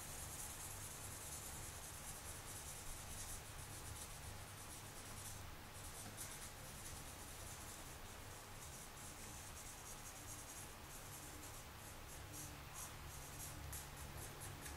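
Permanent marker's felt tip rubbing along the bevel of a steel knife blade in many short, faint strokes, inking the edge so the sharpening angle can be checked.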